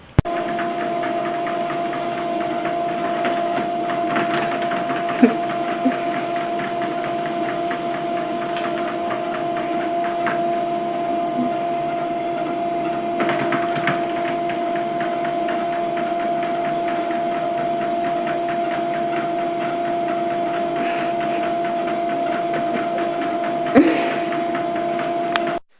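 A small machine running steadily, a constant hum over a fast, even ticking, with a few sharp knocks.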